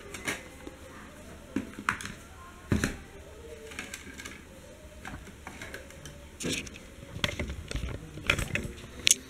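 Scattered clicks and light knocks from a slim Lite-On external DVD writer being handled as its disc tray is ejected and pulled open.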